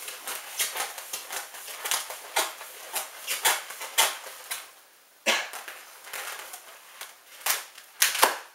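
Latex modelling balloon squeaking and creaking as it is twisted into a spiral by hand: an irregular run of short, sharp rubbery squeaks, with a brief lull a little past halfway and louder squeaks near the end.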